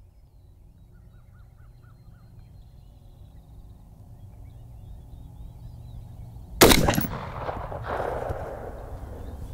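A single shot from a 350 Legend AR-style rifle with a muzzle brake, about two-thirds of the way in, followed by an echo that rolls off over the next couple of seconds.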